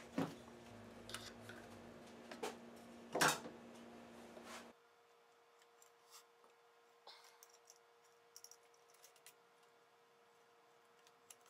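Light metallic clicks and knocks of hands handling an aluminium routing template and its threaded posts on a guitar, with one louder knock about three seconds in. After about five seconds there is only quiet room tone with a few small ticks.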